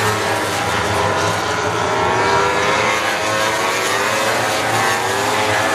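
MotoGP racing motorcycles' 1000 cc four-cylinder engines running at high revs as they pass through a corner. Several engine notes overlap, their pitch rising and falling as the riders shift and accelerate.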